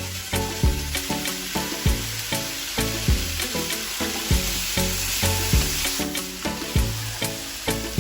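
Food sizzling and being stirred in a frying pan, a steady hiss, over background music with a regular beat.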